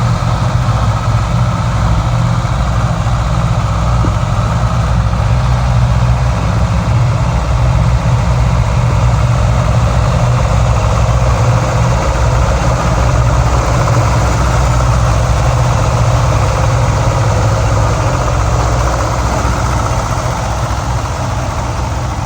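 Deutz diesel engine of a Ditch Witch 2310 DD trencher running steadily.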